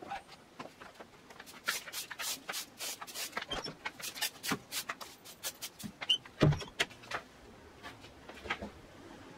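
A straw broom sweeping a concrete floor: quick scratchy swishes of the bristles, stroke after stroke, with one heavier thump about two-thirds of the way through.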